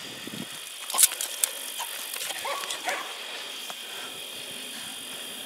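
Hunting dogs whining in a few short rising calls about two and a half to three seconds in, with two sharp clicks about a second in. A steady high hum sits underneath.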